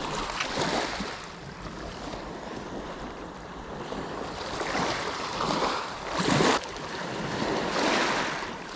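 Sea waves washing onto the shore in several swelling surges, the loudest about two-thirds of the way through, with some wind on the microphone.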